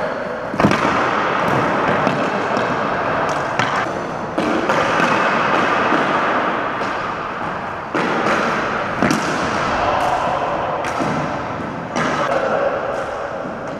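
Ball hockey sticks clacking against the plastic ball and the hardwood gym floor, with the ball thudding off the floor and boards: a string of sharp knocks spread unevenly through the play, echoing in the gym.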